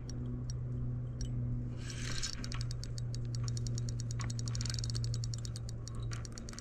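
Spinning reel ticking rapidly, about ten ticks a second, as it is cranked against the weight of a hooked carp.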